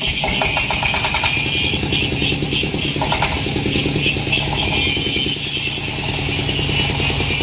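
30 HP Dongfeng diesel engine driving a husk-on corn sheller, running with a fast, even knock and a steady hiss over it.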